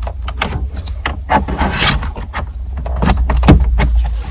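Plastic dashboard trim on a VW Polo Mk5 being prised off with a trim removal tool: a string of clicks and knocks with a stretch of plastic scraping about a second in, and the loudest knocks near the end.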